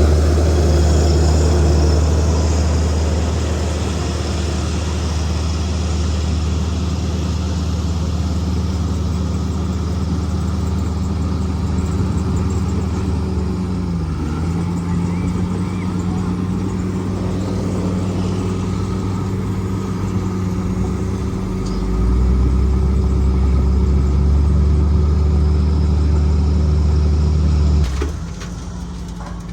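Bulldozer's diesel engine running steadily under load, with a brief dip in pitch about halfway. It grows louder for the last third, then drops off sharply near the end.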